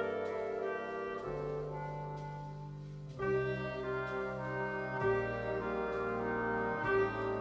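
Orchestral classical music with prominent brass, sustained chords changing every second or two, played back from a vinyl record on a Kuzma Stabi turntable.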